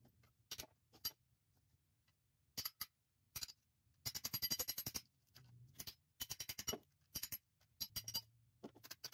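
Hammer blows on metal at the hub of a rusted Ford Model T rear axle. A few separate strikes come first, then quicker runs of sharp metallic taps from about four seconds in, knocking at a seized wheel that will not come loose.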